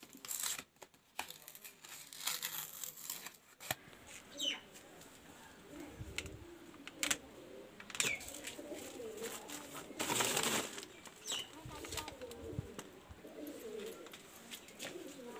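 Paper and card packaging rustling and clicking in the hands, then pigeons cooing low and wavering, with a few short falling bird chirps and a louder rustle about ten seconds in.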